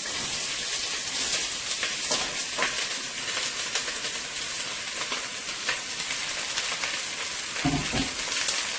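Sliced carrots, cabbage, sweet pepper and onion sizzling steadily in hot olive oil in a pot. A few light clicks run through the sizzle, and a dull knock comes near the end.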